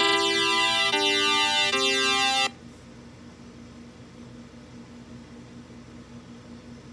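Synthesizer tones played from a music app on a tablet: three sustained electronic notes in a row, each changing about a second apart. They stop abruptly about two and a half seconds in, leaving only a faint low steady hum.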